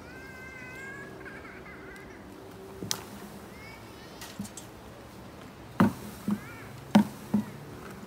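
Five sharp knocks, one about three seconds in and four close together in the second half, as the plastic collecting bucket is worked against the branches under a honeybee swarm. A faint hum of flying bees runs underneath, and a wavering, meow-like call sounds in the first two seconds.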